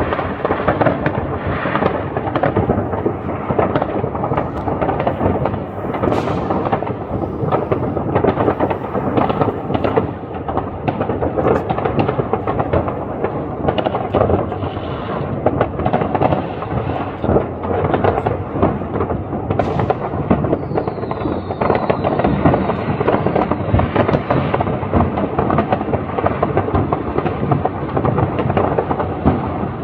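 New Year's Eve fireworks and firecrackers going off without a break: a dense run of bangs and crackling, with a short high whistle about twenty seconds in.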